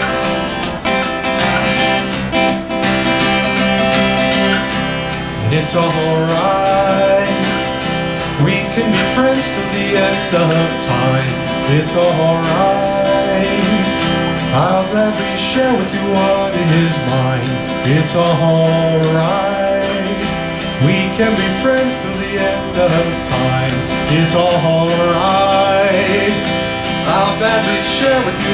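Live acoustic guitar strumming a song; about six seconds in, a man's voice starts singing a melody over the guitar.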